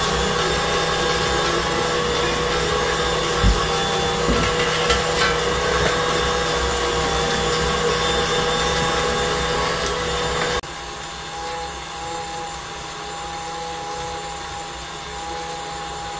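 KitchenAid Classic Plus stand mixer motor driving a stainless steel meat grinder attachment that is grinding raw meat: a steady whine, with a few knocks about three to five seconds in. Just past the middle it drops suddenly to a quieter level and keeps running steadily.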